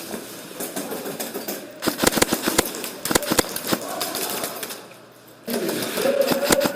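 Airsoft electric guns firing in rapid full-auto bursts, a fast string of sharp cracks that is densest about two seconds in, with scattered shots before and after.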